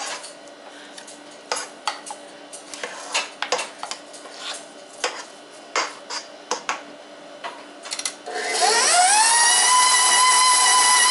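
A spatula scraping and knocking against the sides of a KitchenAid stand mixer's steel bowl. About eight seconds in, the mixer motor is switched on, and its whine rises in pitch and settles into a loud steady whine as the dough hook turns the meatloaf mixture.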